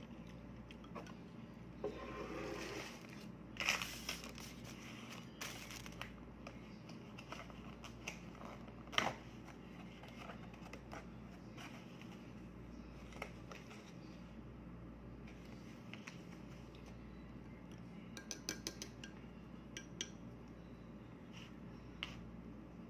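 Handling of a clear plastic clamshell food container and a plastic spoon while eating: scattered sharp clicks and knocks, a short rustle of plastic, and light scraping as rice is scooped. The loudest is a single sharp knock about nine seconds in, and near the end there is a quick run of small clicks.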